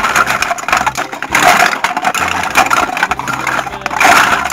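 Plastic toy fruit and food pieces clattering and scraping against each other and the sides of a plastic tub as hands stir them together: a continuous rattle of many small knocks.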